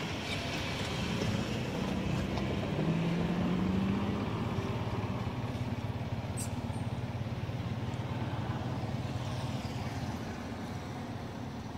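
A motor vehicle engine running, its pitch rising briefly about three seconds in, then a steady low drone that fades near the end.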